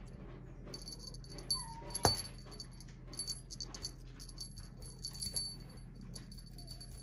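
Small bell on a cat wand toy jingling in short repeated bursts as the toy is jiggled, with a sharp tap about two seconds in.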